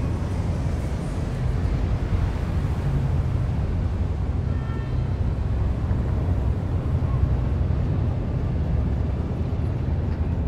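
Steady low rumble of city traffic ambience, with a brief faint high tone about halfway through.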